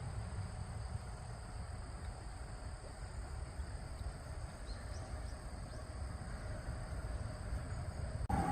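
Outdoor ambience: a steady low rumbling noise with a few faint high chirps around the middle. The sound cuts off abruptly just before the end.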